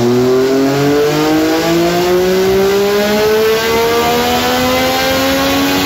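Yamaha Tracer 900's three-cylinder engine through an Akrapovic racing exhaust, pulling under load on a motorcycle dyno. The revs climb steadily and smoothly, the exhaust note rising all the way.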